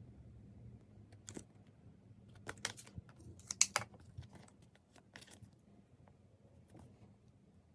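Merchandise packaging being handled and opened: scattered crinkles, rustles, taps and clicks, busiest between about two and a half and four seconds in.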